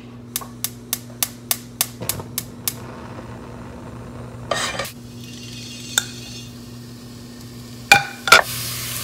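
Cooking sounds at the stove. About half a second in, a quick run of even clicks comes at roughly three a second for about two seconds, followed by a few pan and utensil knocks. Near the end, two loud knocks, then ground Italian sausage starts sizzling in a hot pan with no oil.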